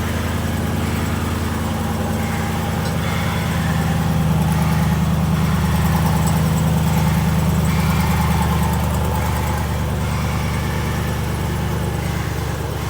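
Truck engine idling steadily, swelling a little in the middle and settling back.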